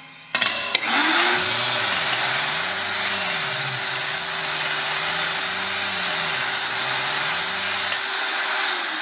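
Hammer union grinder's powered thread-cleaning brush scrubbing the inside threads of a number 4 union nut, with the attached dust vacuum running. After a couple of clicks the motor spins up about a second in; a harsh scrubbing noise with a steady hum and a low tone rising and falling about once a second, until the scrubbing stops about eight seconds in and the hum winds down.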